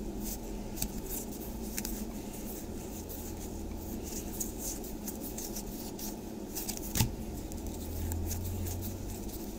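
Trading cards being flicked and slid one by one through the hands, a quick run of light papery ticks and snaps, with one sharper click about seven seconds in.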